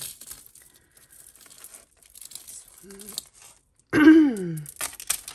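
Glass and stone beads of a costume-jewellery necklace clicking and rattling against each other and the pile of jewellery as the strand is lifted and untangled. About four seconds in, a short, loud, voice-like sound falls in pitch.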